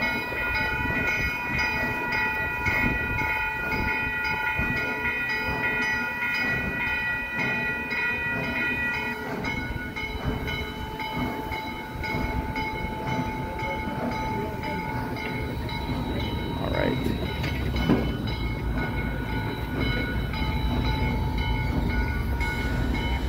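Ex-C&O 2-6-6-2 articulated steam locomotive 1309 moving slowly with its train: a steady low rumble and hissing steam, with several steady high tones over it, some of which drop out about nine seconds in.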